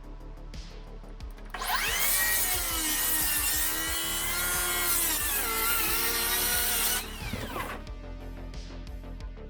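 Makita XGT 40V cordless circular saw spinning up about a second and a half in and cutting chipboard for about five seconds, its pitch wavering and sagging under load, then winding down quickly after the cut. It is struggling more than it should, over background music.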